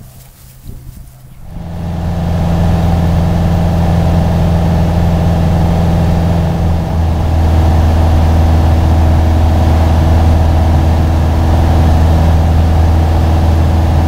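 Propeller airplane engine droning steadily in cruise flight, heard from inside the cabin. It comes in loud after a quiet first second and a half, and shifts slightly in pitch about seven seconds in.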